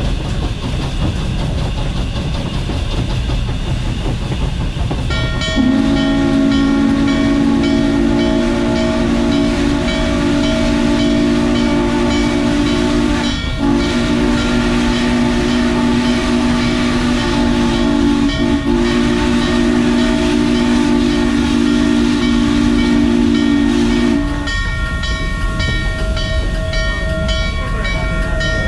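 Norfolk & Western 611's steam whistle blowing one long blast of about twenty seconds, broken twice very briefly, over the running rumble of the moving train. The engine's bell rings in a steady beat from the start of the whistle and keeps ringing after it stops.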